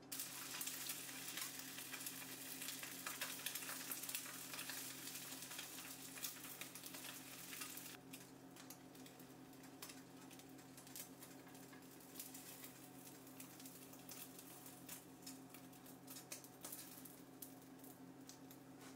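Oil sizzling and crackling in a nonstick frying pan as beaten egg fries around a rice ball. The crackle is busiest for the first several seconds and thins to a lighter, sparser sizzle about eight seconds in.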